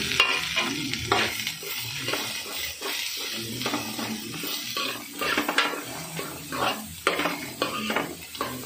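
Metal spoon scraping against a metal pot with repeated strokes as sliced onions and shallots are stirred into hot coconut oil, with a light sizzle of frying underneath.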